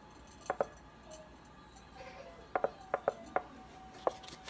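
Ground black pepper being shaken from its container over a stainless steel mixing bowl of meatloaf mix: short, light clicks, a pair about half a second in, then a quicker run of six in the second half.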